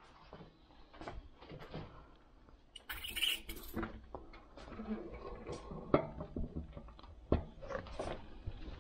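Front wheel of an e-bike being fitted into its fork: scattered light clicks and knocks of the axle, washers and nuts going into the dropouts, with a brief scrape about three seconds in and sharper knocks around six and seven seconds in.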